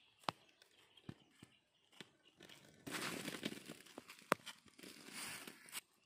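Footsteps crunching through dry grass, leaves and twigs: a few scattered clicks at first, then about three seconds of dense crackling and crunching with a sharp snap a little after the four-second mark.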